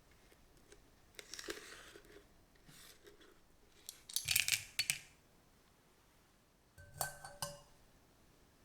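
Kitchen utensils and dishes being handled: three short bouts of clatter and rustle, the loudest about four seconds in, and a ringing clink of metal or glass near the end.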